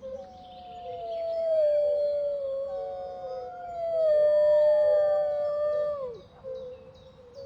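Wolves howling: overlapping long howls that slowly fall in pitch, the last dropping away sharply about six seconds in.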